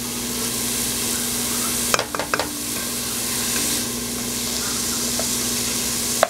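Chopped red onions sizzling in hot olive oil in a nonstick pan while a wooden spoon stirs them, the oil hissing steadily as they fry toward golden brown. A few quick clicks of the spoon against the pan come about two seconds in.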